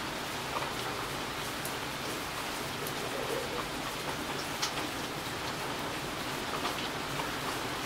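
Steady rain falling, with scattered single drops ticking close by.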